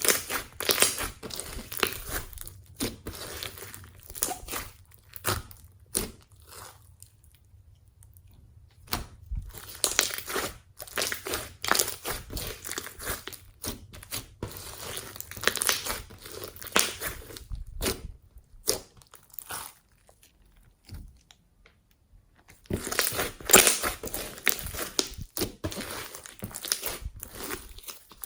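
Floam slime squeezed and kneaded by hand, the foam beads crackling and crunching in dense runs of small clicks, broken by two pauses of a couple of seconds.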